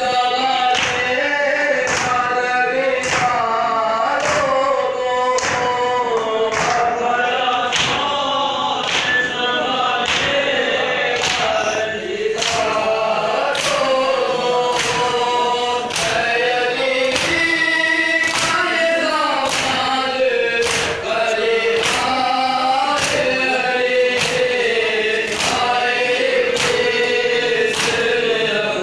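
A male reciter singing a noha (Shia lament) into a microphone, with a group of men singing and chanting along. Under the voices runs a steady beat of hands striking chests (matam), about one and a half strokes a second.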